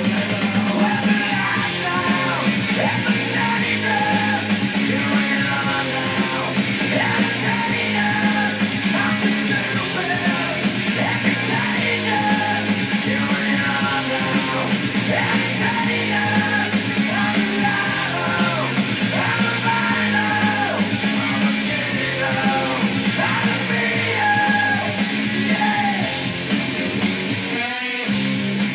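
A rock song with vocals and a full band playing through the Formovie Theater projector's built-in speakers, with a brief break near the end.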